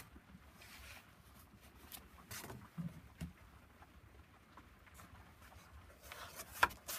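Paper and card being handled in a handmade collage journal: a card drawn from a paper pocket and a folded flap page opened, making a few soft rustles and taps, with one sharper paper crackle near the end.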